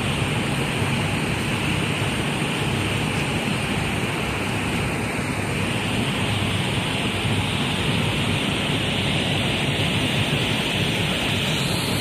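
Steady rushing background noise, even throughout, with no distinct knocks, voices or rhythm.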